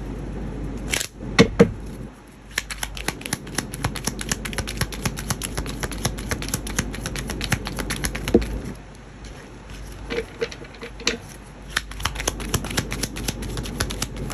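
A deck of tarot cards being shuffled by hand: a few knocks about a second in, then long runs of rapid card clicks, with a brief lull about two-thirds of the way through before the shuffling resumes.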